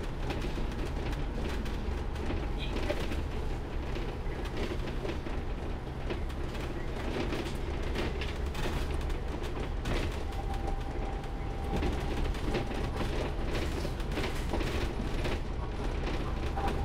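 Inside a moving bus: a steady low engine and road rumble with small rattles and clicks from the body and fittings, and a faint steady whine joining about ten seconds in.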